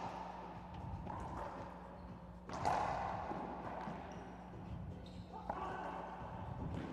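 Racquetball rally: the hollow rubber ball cracks off racquets and the court walls about four times, with each hit echoing in the enclosed court. The loudest strike comes a little before halfway.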